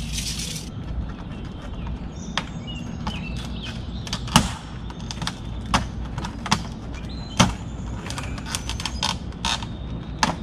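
Irregular sharp clicks and taps from hand work against vinyl siding, the loudest a few seconds in, over a steady low rumble, with faint bird chirps.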